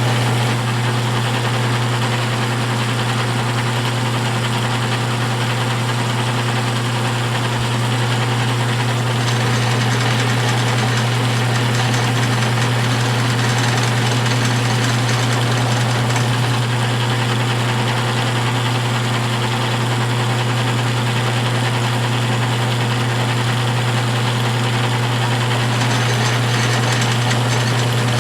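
Motor-driven edge burnisher running with a steady, even hum while a leather edge is pressed against the spinning wheel, burnishing it by friction heat.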